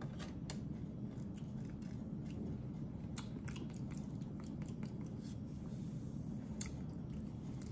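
Mouth sounds of a person eating a birria taco: a scatter of short, wet clicks and smacks from chewing and sucking sauce off the fingers, over a faint steady low hum.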